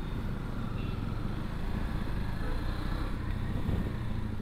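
KTM Duke 250's single-cylinder engine running steadily as the motorcycle is ridden, under a low, even rumble.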